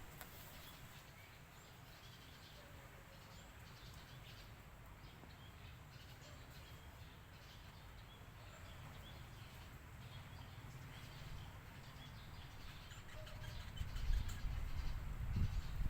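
Faint bird chirps over a low rumble of wind or handling noise, which grows louder and rougher in the last two seconds.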